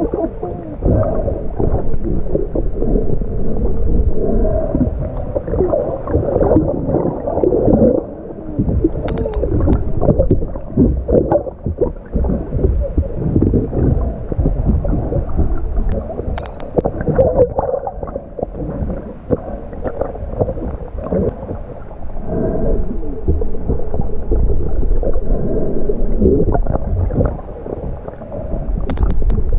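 Water sloshing and bubbling around a camera held at and just under the surface, heard muffled from under water, with irregular crackles and splashes.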